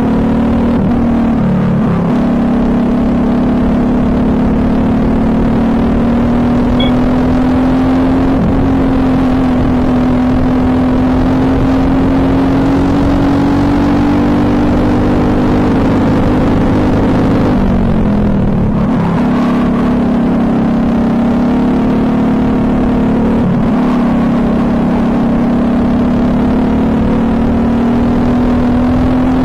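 Briggs & Stratton LO206 single-cylinder four-stroke kart engine running hard at racing speed, its pitch held high and slowly rising along the straights. It drops briefly a few times, most deeply about two-thirds of the way through, where the driver lifts off for a corner, then climbs back as he gets on the throttle again.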